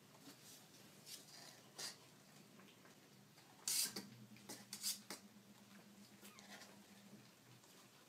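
Young kittens squirming on a blanket in a cardboard box: a few short scratching and rustling sounds, the loudest about four seconds in.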